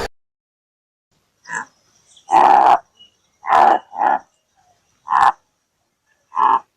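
An animal giving a series of six short, harsh grunt-like calls, roughly one a second.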